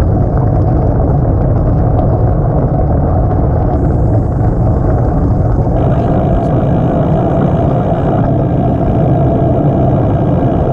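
Wind blowing over the microphone with tyre rolling noise while riding a bicycle on a gravel path, a steady loud rumble. Faint steady high tones join about halfway through.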